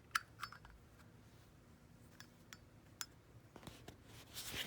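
A Zippo lighter's fuel insert and metal case being handled: a few light metallic clicks, then a brief louder scrape near the end.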